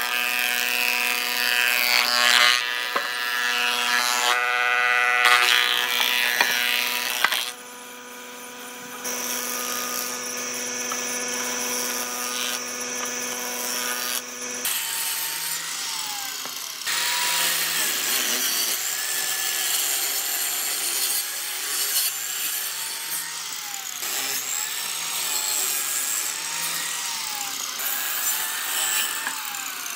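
Combination planer-thicknesser running with a steady hum as its cutter head planes boards and throws out wood chips; the cutting drops out briefly about a quarter of the way in. About halfway the sound changes to a different power-tool noise of wood being cut.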